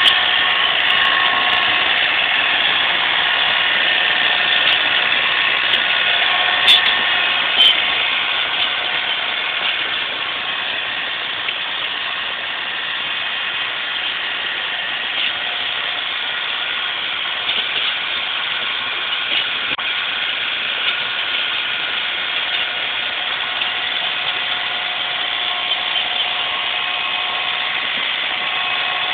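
John Deere tractor's engine running steadily under load while its front-mounted snowblower throws snow, a continuous drone with a few steady tones in it. Two sharp clicks come about seven and eight seconds in.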